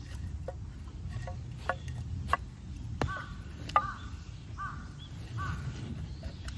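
Pieces of split firewood knocking and clacking against each other as they are handled and laid down in a pile, the sharpest knock a little past the middle. A bird calls four times in short, even notes from about three seconds in.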